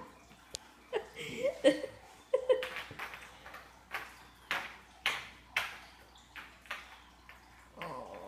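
A series of light, irregular clicks and taps, some with a short ring, with a few brief voice sounds in the first couple of seconds and again near the end.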